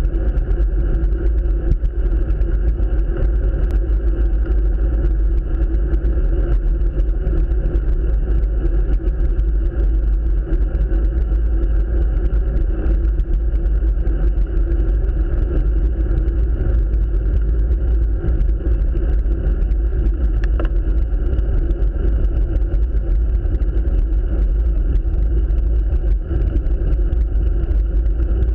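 Steady wind rumble on the microphone of a handlebar-mounted camera on a moving road bike, mixed with road and tyre noise on asphalt.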